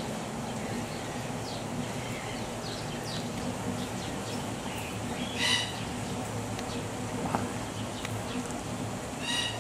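Birds chirping over a steady background hiss, with two louder, pitched squeals about halfway through and near the end.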